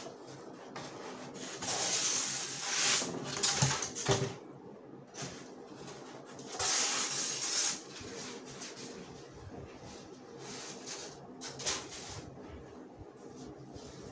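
Packing being handled in a cardboard carton: rustling and scraping of cardboard and packing material against a wooden storage box, in two louder stretches of a second or two, with a few short knocks.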